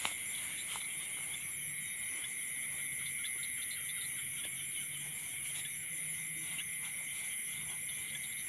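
Night insects chorusing: a steady high-pitched trill, with faint scattered clicks.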